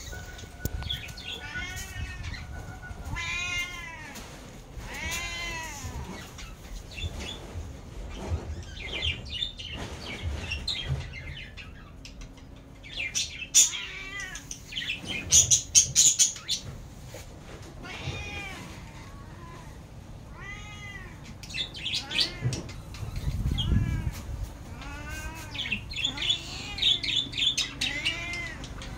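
Domestic ginger tabby cat meowing over and over, a string of separate rising-and-falling meows every second or few seconds: a cat crying to be fed.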